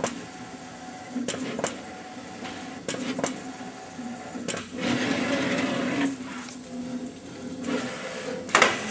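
PVA 1000 conformal coating machine running its film-coat head: a steady motor hum broken by sharp clicks every second or so, with a louder hiss lasting about a second, about five seconds in.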